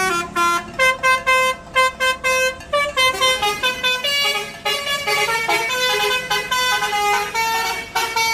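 Telolet bus horn of the basuri type playing a fast melody: a run of short, bright horn notes stepping up and down several times a second.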